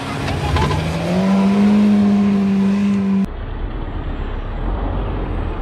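SUV engine revving up and holding high revs as the vehicle, stuck in mud, tries to drive out. About three seconds in it cuts off suddenly, and a rough low rumble continues.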